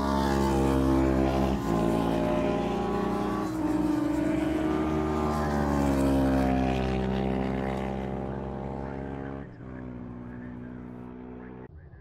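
A classic racing motorcycle engine at full throttle, its pitch climbing in each gear and dropping sharply at upshifts about a second and a half, three and a half and nine and a half seconds in. The sound fades as the bike pulls away.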